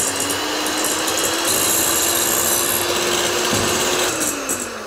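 Electric hand mixer whipping egg whites in a glass bowl toward soft peaks: a steady motor hum with the whir of the beaters in the whites. About four seconds in, the motor slows and winds down.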